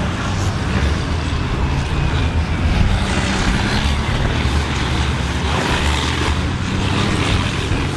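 Diesel engines of stripped-down racing combine harvesters running hard and loud. Several machines are going at once, with a steady low engine drone under a rough, noisy roar.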